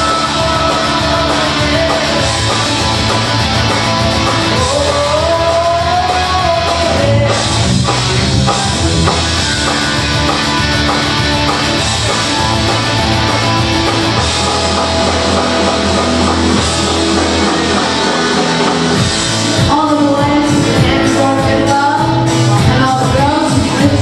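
A woman singing karaoke into a handheld microphone over a rock backing track with electric guitar. The accompaniment gets louder and busier about three-quarters of the way through.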